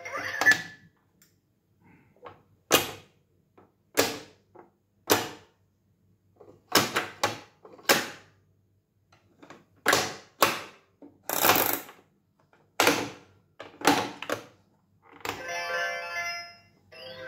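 Plastic pop-up toy's animal doors snapping shut and buttons springing them open: a string of a dozen or more sharp plastic clicks, one at a time with pauses between. Near the end the toy's electronic tune starts playing.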